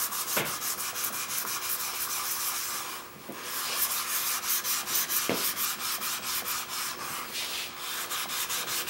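The cast-iron sole of an old block plane is scrubbed back and forth on sandpaper over a flat surface, lapping the sole flat and taking out scratch marks. It makes a quick, even run of scratchy strokes, with a brief lull about three seconds in and a light knock a little after five seconds.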